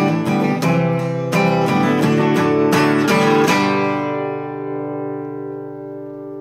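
Acoustic guitar strumming the closing bars of a song, then a final chord left to ring out, fading steadily over the last few seconds.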